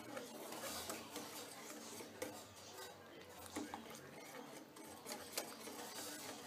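Wire whisk stirring hot milk in a steel saucepan, its wires ticking faintly and irregularly against the pan as custard-powder paste is stirred in.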